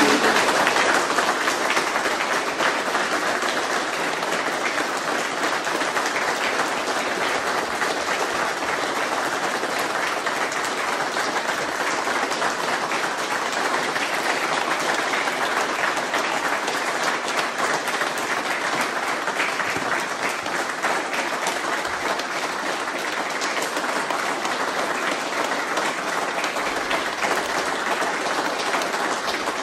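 Crowd of people applauding, a dense, steady clapping that keeps going without a break.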